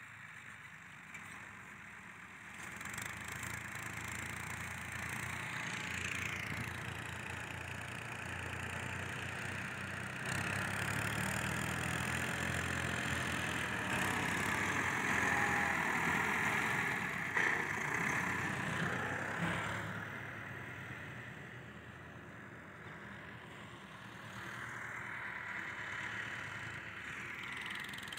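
Diesel farm tractors running under load while pulling rear blades that level sand, a Massey Ferguson 385 among them. The engine sound grows louder about a third of the way in as a tractor works close by, then falls back.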